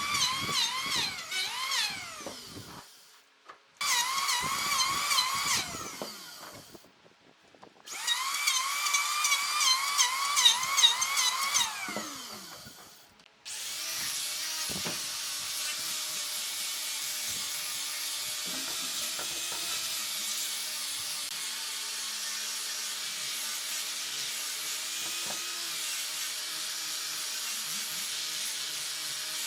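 Power tool working wood. It starts with three short runs, each with a high whine that wavers and dips under load and winds down when released. From about halfway it gives way to a steady, noisier run.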